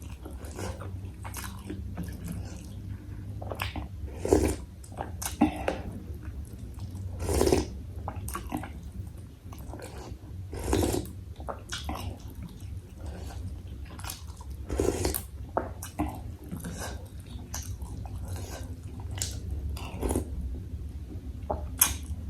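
Close-miked eating of spicy bakso meatball soup: a run of chewing and biting sounds, with a louder one every three to four seconds, over a low steady hum.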